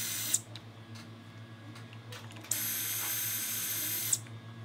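Battery-powered surgical drill driving a straight pin through the femoral notch guide into a saw-bone femur: a steady high-pitched whine that stops just after the start, then a second run of about a second and a half near the end.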